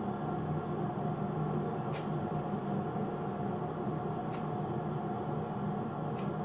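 Steady low mechanical hum with a few faint clicks about two seconds apart.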